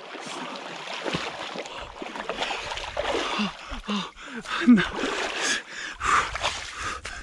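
Water splashing and sloshing as a person swims and crawls out of a lake's shallows, with a few short shouts, the loudest about four and a half seconds in.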